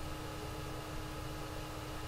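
Steady background hiss with a low hum and a few faint steady tones, the noise floor of a desktop recording setup; no distinct events.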